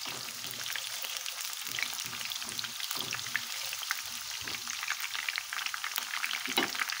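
Sliced onion and garlic frying in hot oil: a steady sizzle with many small crackles and pops, while a silicone spatula stirs them around the pan.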